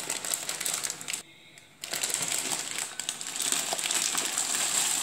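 Plastic bag of dry macaroni crinkling and rustling as the pasta is poured into a pot of water, with many small crackles. There is a brief pause about a second in.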